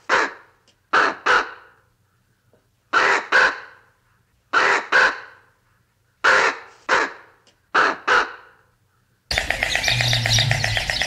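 A bird's harsh calls given in pairs, six pairs spaced about a second and a half apart. About nine seconds in this changes abruptly to a dense, steady chorus of chirping birds.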